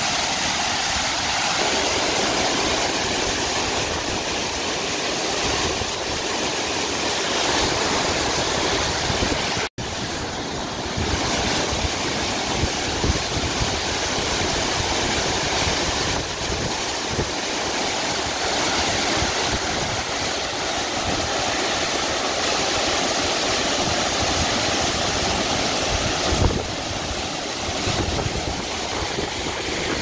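Tall waterfall, about 50 m high, falling onto rocks and into a pool: steady, dense rushing of water. It cuts out for an instant about ten seconds in.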